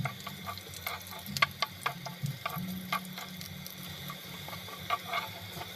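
Minced garlic sizzling in hot oil in a nonstick pan, with scattered crackles and pops as it is stirred with a wooden spatula. A steady low hum runs underneath.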